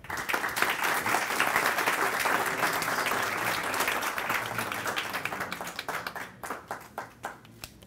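Audience applauding. The clapping starts all at once, then thins out to scattered claps and dies away near the end.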